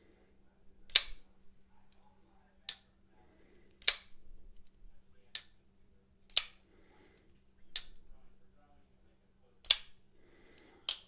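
Folding knife on freshly fitted Skiff ceramic bearings being flipped open and closed four times in a row: each opening ends in a loud sharp snap as the blade locks up, and each closing gives a softer click into the detent.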